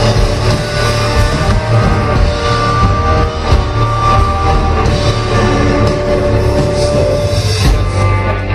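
Live rock band playing loud, dense music: sustained electric guitar over drums and a heavy steady bass.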